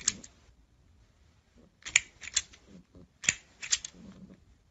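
Plastic toy crocodile clacking in quick groups of two or three sharp clicks. There is a group at the start, another about two seconds in and a third a little over three seconds in.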